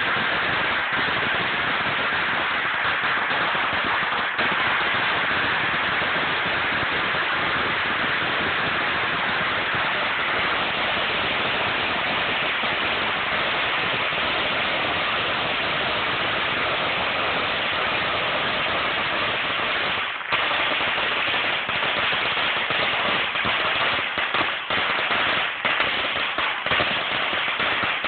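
A very long string of firecrackers going off in a continuous, dense crackle of rapid bangs. After a brief dip about two-thirds of the way through, the bangs come less evenly, with single cracks standing out.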